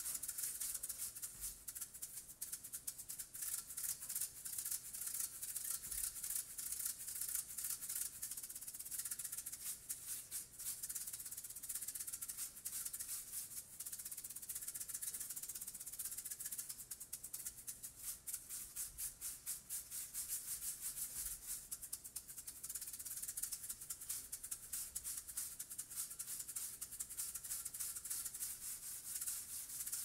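A pair of maracas shaken in a fast, even rhythm.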